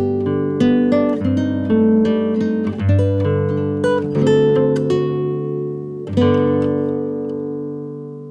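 Background music: acoustic guitar, plucked and strummed chords, with a final chord about six seconds in that slowly rings out.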